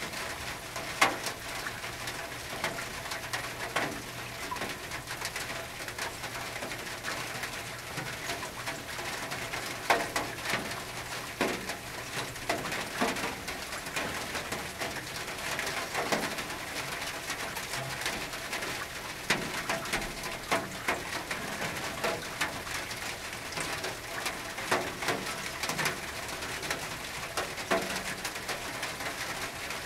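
Rain on a tin roof: a steady patter with irregular sharper drips and knocks striking the metal. A bird calls at times under the rain.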